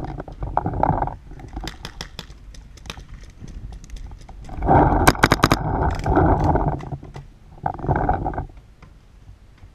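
Paintball fire: runs of sharp pops in quick succession, twice, over loud bursts of rushing noise close to the microphone.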